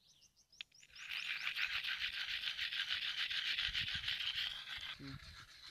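Freshwater mussel shell rubbed hard against a wet stone: a rough scraping in quick, regular strokes that starts about a second in and stops near the end, as the shell's back is ground through to make a hole.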